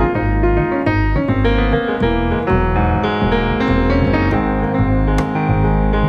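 Music: jazz piano on a grand piano, with a double bass underneath, playing a continuous line of notes.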